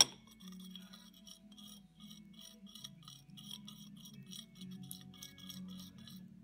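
Background music with a quick, even ticking beat over a low sustained tone, opened by one sharp, loud click.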